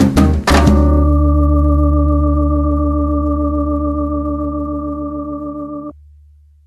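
A salsa band ends a song. A last burst of percussive playing closes on a final hit about half a second in, then a chord is held for about five seconds, fading slowly. The chord cuts off, and a low bass note lingers briefly and dies away.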